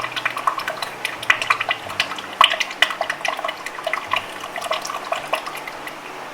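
New motor oil pouring from a bottle through a funnel into the engine's oil filler, with a stream of irregular glugs and gurgles.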